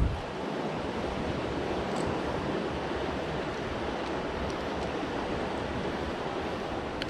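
Steady rush of fast-flowing floodwater in a swollen creek, with a short low thump at the start and a few faint ticks.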